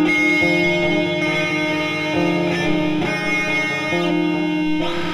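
Music on plucked guitar: sustained, ringing chords that change about once a second.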